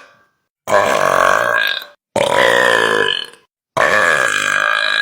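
A man burping loudly: three long, drawn-out pitched burps, each lasting over a second, separated by short pauses.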